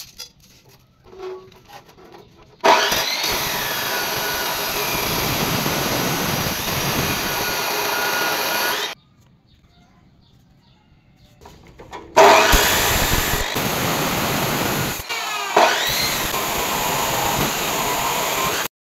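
Abrasive cut-off saw (chop saw) cutting through steel square tubing with its abrasive disc, in two long cuts of about six seconds each, separated by a few seconds of quiet.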